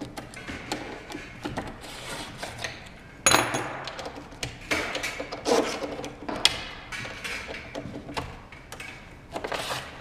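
Irregular knocks, scrapes and metallic clinks of parts being handled while worktables are set up, the loudest clatter starting a little past three seconds in.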